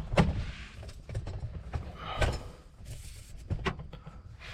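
A few scattered knocks and bumps from someone climbing into and settling in a mini excavator cab, with the cab door and frame being handled.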